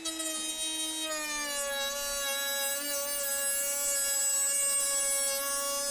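A small power tool's motor whining steadily, its pitch dropping slightly about a second and a half in.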